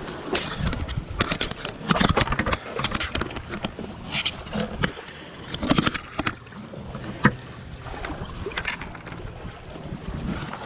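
Sea water lapping and splashing among the rocks of a stone jetty, with wind on the microphone and irregular knocks and scrapes.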